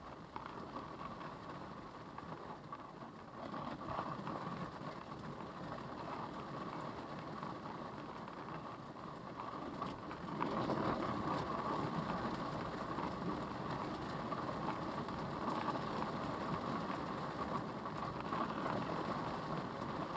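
Tornado-force wind and rain beating on a car, heard from inside the cabin, growing louder about ten seconds in.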